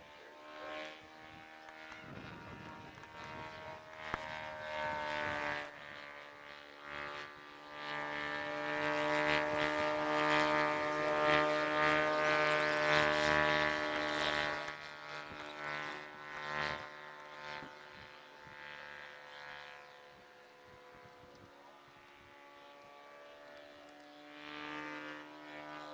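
Radio-control model Cessna 182's engine and propeller droning in flight, a steady pitched hum with overtones. It swells loudest through the middle as the plane passes close, then fades as it flies off and returns near the end.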